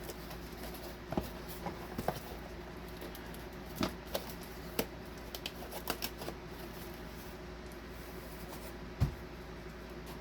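Packaging being handled: scattered rustles, taps and clicks of plastic and cardboard, with one low thump near the end.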